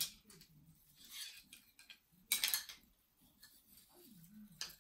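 Rustling and crinkling of card cutouts and cloth as a paper moon-phase garland is drawn out of a small drawstring bag and untangled by hand, in a few short bursts with the loudest about two seconds in.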